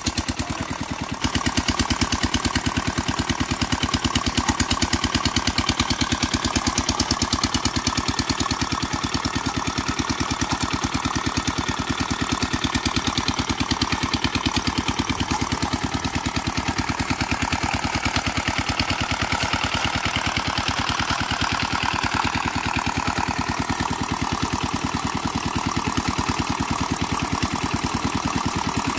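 Small stationary engine driving a steel-cable winch drum, running steadily with a fast, even chug; it gets louder about a second in.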